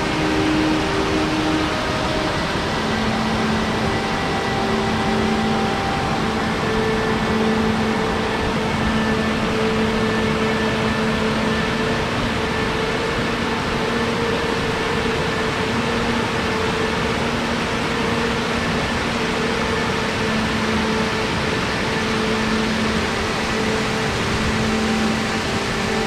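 Water rushing over a shallow rock cascade and small waterfall, a loud, steady wash of noise close to the microphone, with faint steady humming tones underneath.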